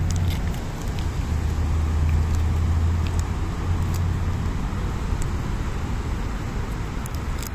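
A nearby motor vehicle's engine running with a steady low hum over road noise; the hum fades about four and a half seconds in.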